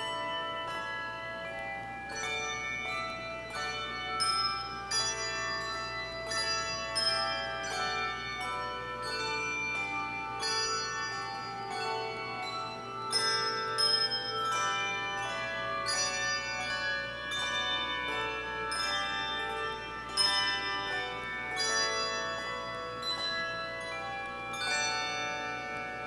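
A handbell choir ringing a piece of music: chords and melody struck on handbells, each note ringing on and overlapping the next, softening a little near the end.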